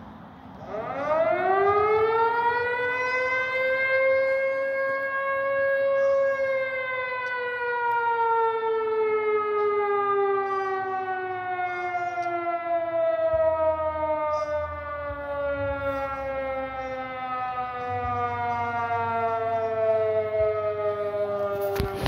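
Air-raid-style civil defense siren winding up fast to a high wail within a few seconds, then sliding slowly down in pitch as it winds down.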